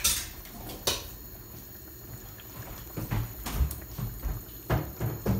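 Thick tomato and vegetable stew simmering in a pan on a gas hob, its bubbles plopping irregularly. A sharp click comes at the start and another about a second in.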